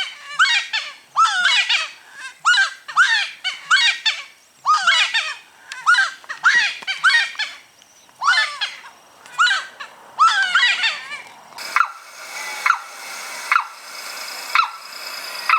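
Birds calling in quick, repeated phrases of gliding notes. About twelve seconds in, the sound changes to single sharp notes about once a second over a faint steady background noise.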